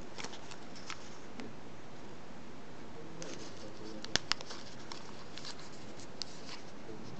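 Origami paper rustling and crinkling in the fingers as it is creased and folded into a box crane, with scattered small crackles and two sharp clicks a little after four seconds.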